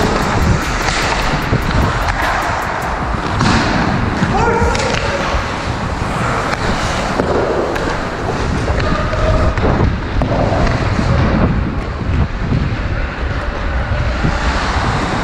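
Ice hockey skate blades scraping and carving on the ice, with wind rushing over the camera's microphone as the player skates. Short distant shouts from other players come through now and then.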